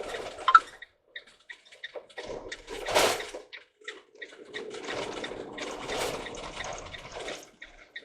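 Water splashing and dripping in uneven spurts, loudest about three seconds in.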